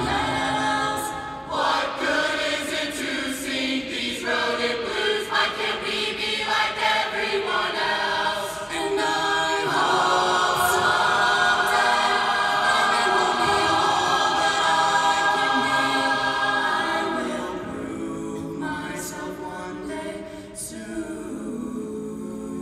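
Mixed choir of men's and women's voices singing together. The singing swells into a louder, sustained passage about ten seconds in, then grows softer after about seventeen seconds.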